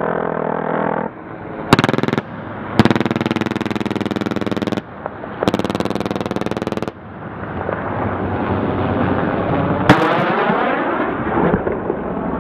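A helicopter's gun firing three bursts of rapid fire: a short one, a longer one of about two seconds, then one of over a second, with the helicopter's rotor and engine running between them. After the bursts the helicopter noise swells as it passes, with a single sharp crack a little before the end.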